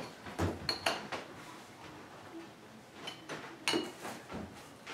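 Scattered light knocks and clicks of small hard objects being handled, with two brief clinks, one early and one near the end.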